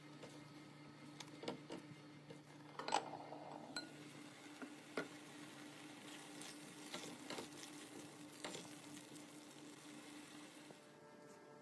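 Wooden spatula stirring and scraping through a thick tomato and onion sauce in a stone-coated pan, with light sizzling underneath. Scattered clicks of the spatula against the pan, the sharpest about three seconds in, over a faint steady hum.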